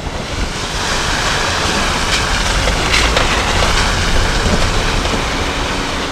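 Strong wind buffeting the microphone: a steady rushing noise with a heavy low rumble, swelling in the middle.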